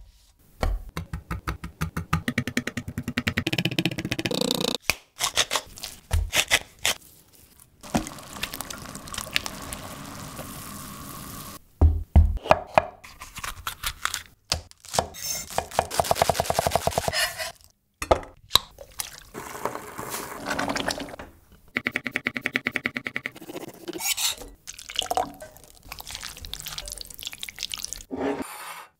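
Close-miked food preparation sounds in a string of short clips. Raw chicken and a red bell pepper are handled and cut on a wooden board, with runs of quick, even taps and a few seconds of steady hiss in the middle. Near the end a wooden spatula stirs a wet, saucy chicken filling in a glass bowl.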